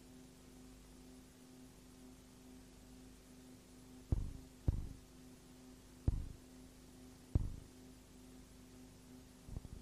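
A steady low electrical hum, with five dull thumps at uneven intervals from about four seconds in.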